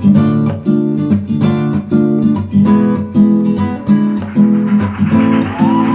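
Acoustic guitar strumming chords in a steady rhythm, about two strums a second, as the instrumental ending of a song; a hiss swells in under it over the second half.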